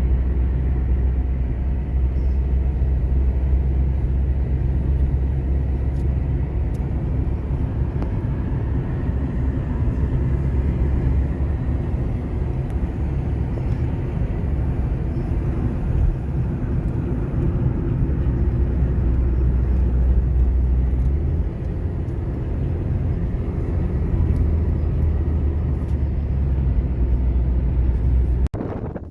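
Steady low rumble of engine and road noise inside a moving car at highway speed. It cuts off abruptly just before the end.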